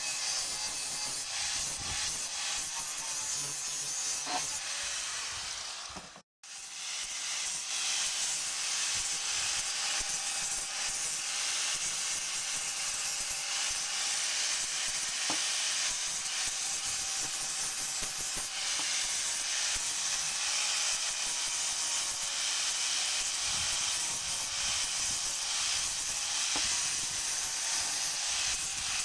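Angle grinder with an abrasive disc grinding the steel of an axe head, a steady harsh hiss over the motor's whine. It breaks off for a moment about six seconds in, then carries on.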